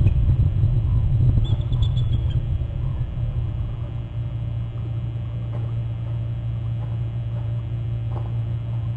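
Wind on an outdoor webcam microphone: a steady low rumble, heavier over the first three seconds, then even. A faint thin high note sounds briefly about two seconds in.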